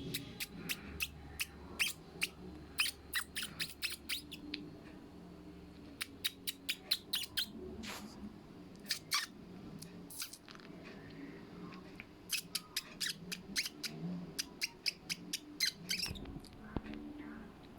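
Cockatiel giving short, sharp chirps in quick runs, with two pauses between the runs.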